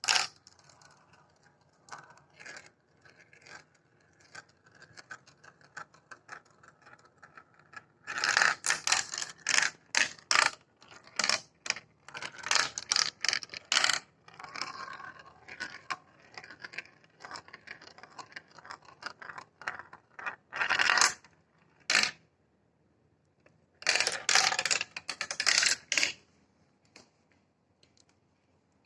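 Marbles rolling and clattering through plastic marble-run track: quiet rolling with scattered clicks, broken by several dense runs of rapid clacking.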